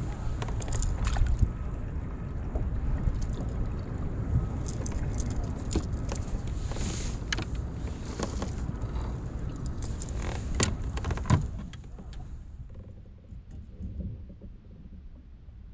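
Wind rumbling on the microphone, with scattered clicks, knocks and light rattles from fishing gear being handled on a kayak. The sound drops much quieter about twelve seconds in.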